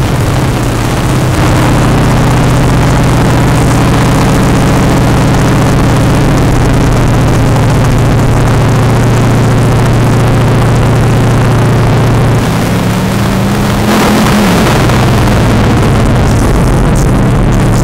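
A car engine running steadily while driving, its pitch rising and falling briefly about thirteen seconds in.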